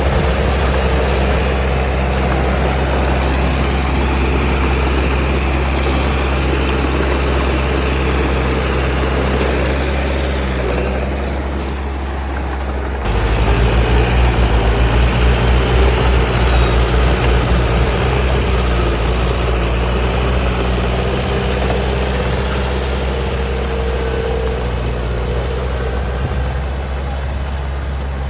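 A heavy diesel engine of construction machinery running steadily. About halfway through it suddenly gets louder, with a quick pulsing for a few seconds, then it runs steadily again.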